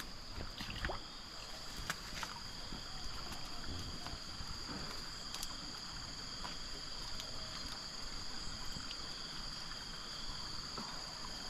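Steady high-pitched drone of insects, with a few light clicks and rustles as twigs and plants are handled at the water's edge.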